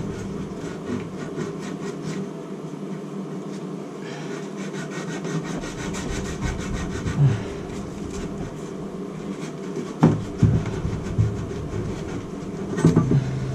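Copper pipe being scrubbed clean by hand with an abrasive before sweating, in rapid back-and-forth rubbing strokes, with a couple of knocks near the end. It is the cleaning that lets the soldered joint hold pressure.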